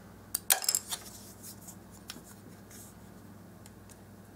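Small handling sounds of craft work on a paper-covered tabletop: a sharp click about half a second in, then a brief scratchy rasp and a few light ticks and rubs that die away after a couple of seconds.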